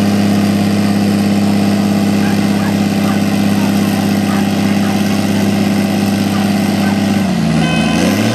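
John Deere 3040 tractor's six-cylinder diesel engine running hard at a steady, constant pitch while pulling a sled. Near the end the engine note dips and climbs again.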